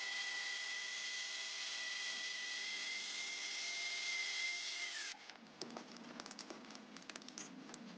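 Electric power tool motor running with a steady high whine and hiss, switched off about five seconds in so that it winds down and stops abruptly, followed by light clicks and taps.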